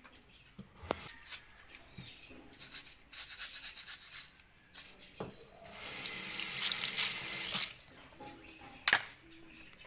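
Mud crabs being washed by hand in a stainless-steel sink: scraping and splashing with shells knocking on the steel, a rush of running water for about two seconds partway through, and one sharp knock near the end.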